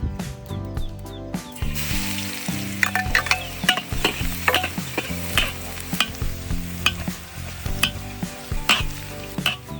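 Hot oil sizzling as food deep-fries, starting about a second and a half in, with sharp clicks of a utensil stirring against the pan. Background music plays underneath.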